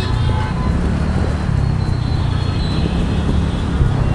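Steady road noise from a moving two-wheeler in city traffic: a low rumble of engine, wind and surrounding vehicles.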